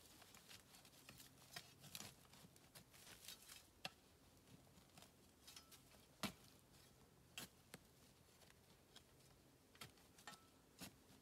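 Faint, irregular small clicks and snaps scattered throughout, the loudest about six seconds in, over a faint low steady hum.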